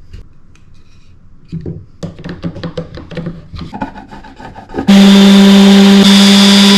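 Rapid scraping strokes on wood, like hand sawing or rasping. About five seconds in, an electric power tool starts and runs loud and steady with a constant whine, much the loudest sound.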